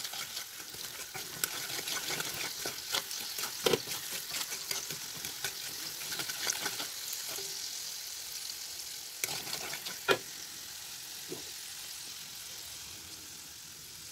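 Oil and melting sugar syrup sizzling in an iron karahi while a wooden spatula stirs, with a few sharp knocks of the spatula against the pan, the loudest about 4 and 10 seconds in. The sizzle eases off over the last few seconds.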